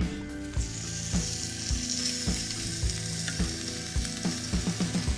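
Raw pork belly sizzling on the hot grates of a gas barbecue, the sizzle starting about half a second in as the meat goes on. Background music with a steady beat plays under it.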